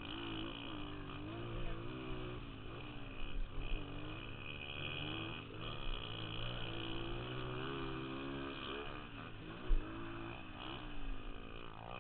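Dirt bike engine under way, its pitch rising and falling again and again as the throttle is opened and closed through the corners. A single sharp thump about ten seconds in.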